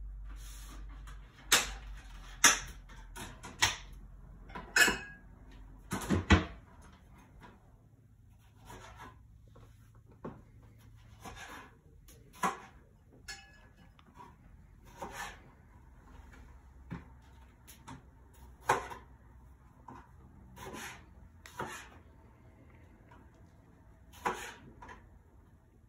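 Kitchenware being handled at a kitchen counter and sink: a string of separate clinks, knocks and clatters, bunched and loudest in the first six seconds, then sparser.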